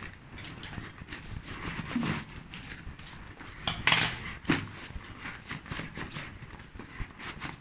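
Furled nylon umbrellas rustling and scraping against a cardboard box as they are slid out by hand, with scattered clicks and knocks on the table. The loudest burst of rustling comes about four seconds in.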